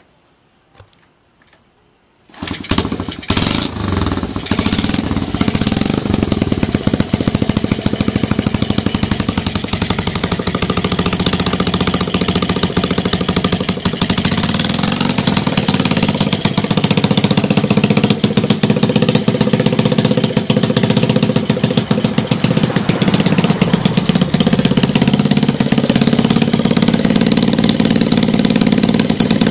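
Honda Monkey Z50J's 50 cc four-stroke single kick-started, catching on the first kick about two seconds in, given a few quick revs, then idling steadily through an aftermarket muffler.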